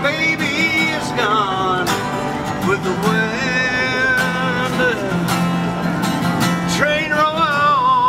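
A man singing over a strummed acoustic guitar, with regular strum strokes under a sung melody that rises and falls.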